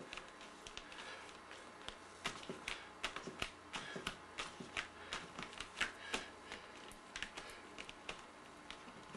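Fingertips dabbing and tapping paint onto a painting laid flat on a table: irregular quick taps, several a second, some louder than others.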